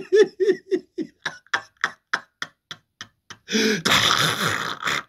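A man's voice mimicking being choked: a run of short strained grunts, then a series of dry clicking gulps in the throat, then a harsh rasping croak for over a second, starting about three and a half seconds in.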